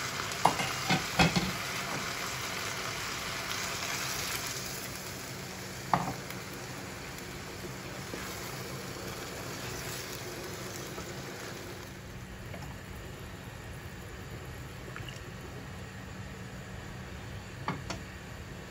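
Spiced jackfruit seeds and small fish sizzling in a pan as they are stirred with a spatula, with a few sharp knocks of the spatula against the pan about a second in and again around six seconds. The sizzle fades to a quieter steady hiss in the second half.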